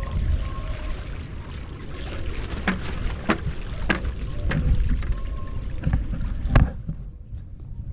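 Wind buffeting a pole-mounted action camera's microphone over open water, with water splashing and trickling around a wing-foil board. Several short sharp clicks come in the middle stretch.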